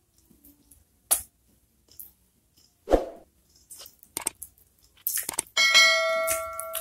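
Close-miked eating sounds of a handful of rice and chilli eaten by hand: a few sharp wet mouth clicks and smacks. About five seconds in, a whoosh and then a loud ringing chime sound effect from a subscribe-and-share animation, held to the end.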